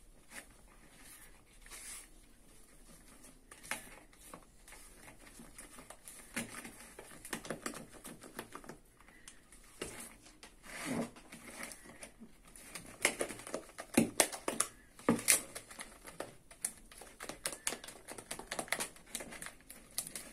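A metal spoon stirring thick cocoa cake batter in a plastic mixing bowl, working the cocoa powder in: irregular scraping and clicking of the spoon against the bowl, louder and faster in the second half.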